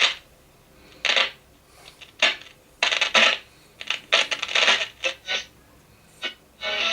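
Dansette Gem transistor radio giving short, irregular bursts of scratchy crackle and hiss as it is tuned, the noise typical of a dirty tuner. Near the end a longer burst of hiss carries a faint whistle.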